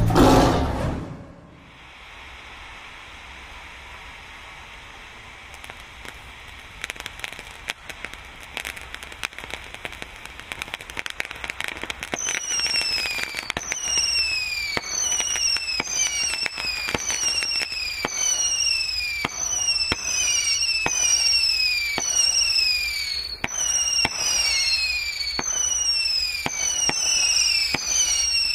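Consumer firework cake going off. After a short lull, crackling and sharp pops start about six seconds in. From about twelve seconds on, a series of falling whistles sounds, roughly one a second, mixed with pops.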